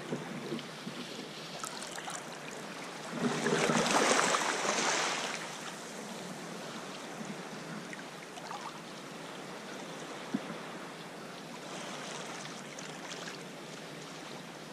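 Sea water lapping and sloshing against rocky ledges beside a kayak, with one louder rush of splashing water about three seconds in that lasts a couple of seconds.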